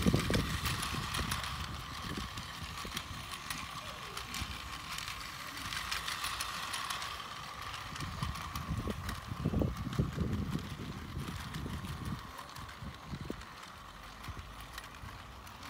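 Plarail toy train's small electric motor running with a steady whine as the train circles its plastic track, with scattered clicks and intermittent low rumbles; the whine fades after about twelve seconds.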